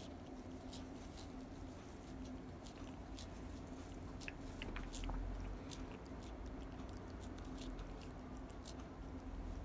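Tabby cat licking Churu paste treat from a squeeze tube: soft, irregular wet clicks and smacks of the tongue and mouth, several a second.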